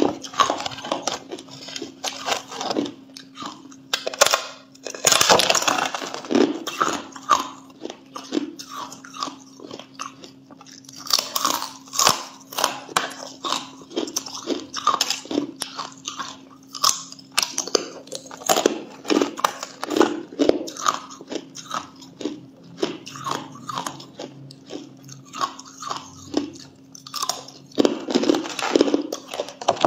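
A thin sheet of ice being bitten and crunched, the shards crackling sharply as they are chewed, in repeated bouts of bites.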